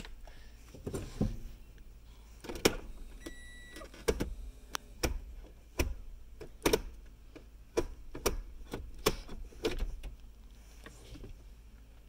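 Plastic clicks and knocks from a 2014 Toyota Prius's hand brake lever and gear shift lever being worked by hand, at uneven intervals. There is one short beep a little over three seconds in.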